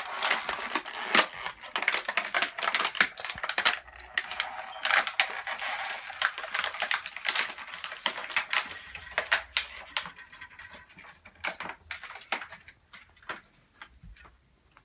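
Clear plastic toy packaging crinkling and crackling as it is handled and opened, with many sharp crackles close together; it thins out to scattered crackles in the last few seconds.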